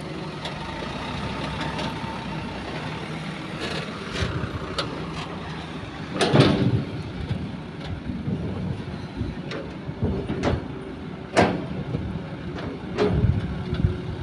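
Diesel engines of a dump truck and an excavator running steadily, with several sharp knocks or bangs over them, the loudest about six seconds in.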